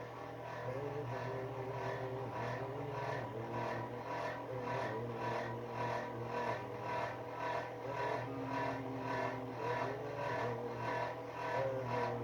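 Space heater's fan running: a steady hum with a regular pulsing about twice a second and faint wavering tones over it.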